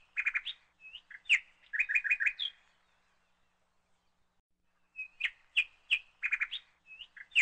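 A small bird chirping: a phrase of sharp high chirps ending in a quick run of four or five notes, then a pause of a couple of seconds, then the same phrase again.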